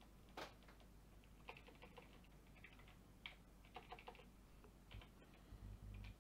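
Faint typing on a computer keyboard: irregular clusters of key clicks as a command is entered, with a few dull low thumps near the end.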